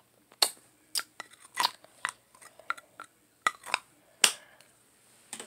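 Plastic clicks and taps from a Juicy Drop candy tube being handled, about a dozen short sharp clicks at uneven spacing.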